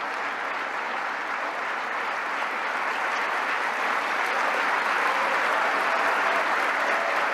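Large audience applauding steadily, growing a little louder about halfway through.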